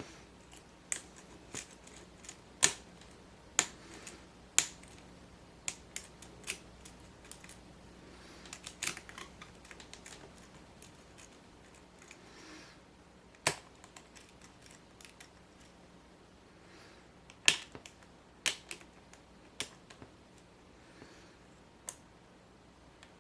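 Lock pick and tension wrench working the pin stack of a padlock with spool pins: small, sharp metallic clicks at an irregular pace, a few clearly louder than the rest.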